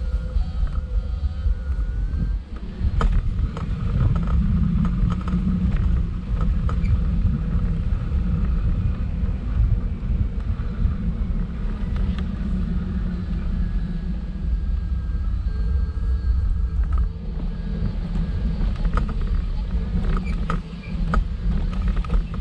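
Steady low rumble of a wheelchair's wheels rolling over paving and tarmac, with scattered clicks and creaks from the chair.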